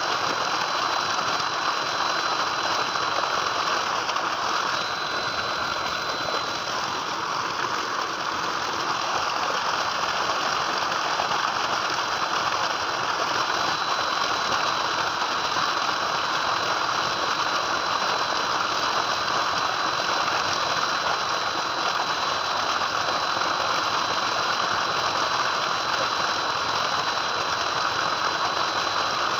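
Tubewell water gushing steadily from the outlet pipe and splashing into a concrete tank, with a thin, steady high whine over it.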